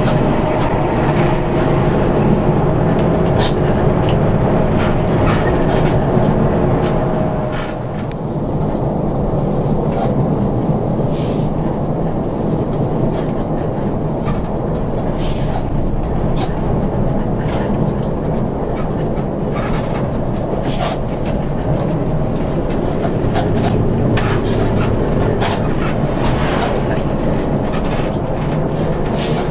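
Intercity bus heard from inside the cabin on the move: steady engine drone and road noise, with scattered light rattles. The engine note drops away about eight seconds in and builds up again later.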